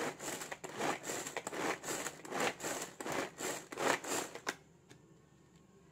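Pigeon handy chopper, a three-blade pull-cord manual vegetable chopper, worked with about nine quick pulls at roughly two a second: the cord zips out and rewinds while the blades spin through cabbage in the plastic bowl. The pulls stop about four and a half seconds in.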